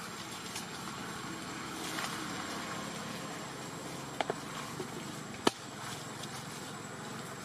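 Outdoor ambience with a steady low hiss and rumble, broken by a few sharp clicks: two close together about four seconds in, and a louder single click about a second later.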